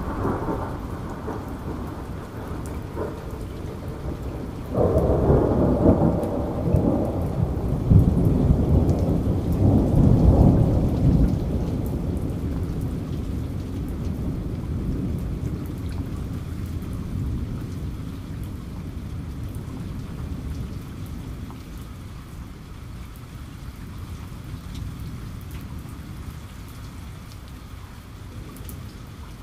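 Steady rain with a roll of thunder that breaks in suddenly about five seconds in, swells for several seconds and then slowly dies away.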